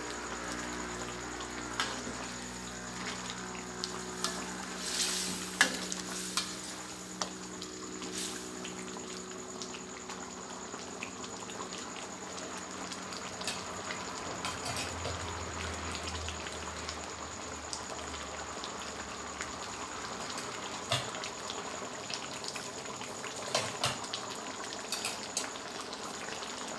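Chicken hang lay curry simmering in a wok, bubbling and sizzling steadily with scattered small pops.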